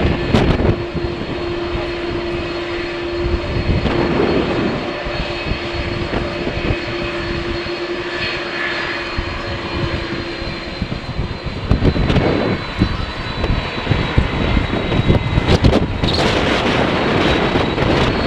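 Jet airliner engines running with a steady high whine, and a lower steady tone that stops about eleven seconds in, under gusts of strong wind buffeting the microphone.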